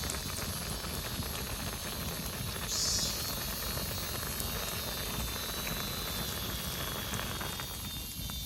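Ramen soup boiling in a pot, a steady bubbling.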